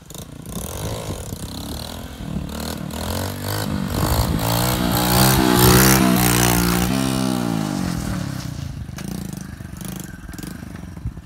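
Small commuter motorcycle engine running and revving as the bike rides up and passes close by. The sound swells to its loudest about halfway through, the pitch bending down as it goes by, then fades to a lower running sound.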